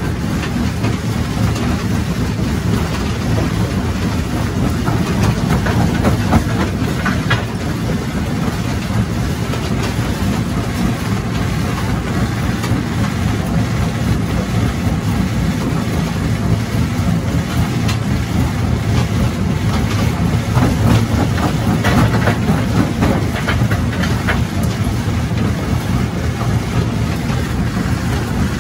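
Mobile jaw crusher running steadily, its flywheels turning, with a heavy low rumble and scattered cracking and grinding as a large rock is chewed down between the jaws; the cracks come thicker about a quarter of the way in and again past the middle.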